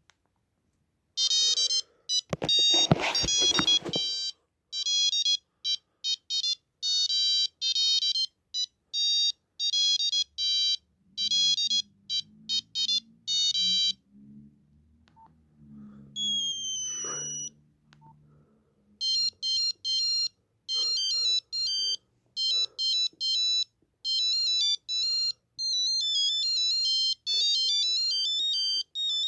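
Nokia 8265i ringtones playing: quick melodies of clipped, single-note electronic beeps from the phone's speaker. One tune stops about halfway through and another starts a few seconds later. There is a brief crackle near the start and a short falling tone in the gap.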